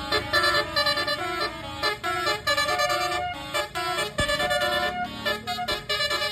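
Basuri multi-tone 'telolet' horn playing a melody as a quick run of short stepped notes, with one knock about four seconds in.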